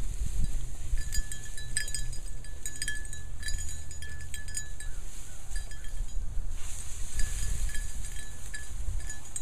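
Small bell on a hunting dog's collar jingling in irregular bursts as the dog moves, over a steady low rumble.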